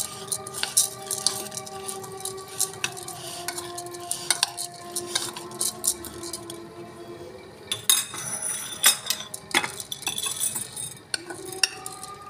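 Metal spoon clinking and scraping against a ceramic bowl as fried chana dal is stirred, the crisp lentils rattling against each other in quick irregular ticks. A run of louder clinks comes about eight seconds in.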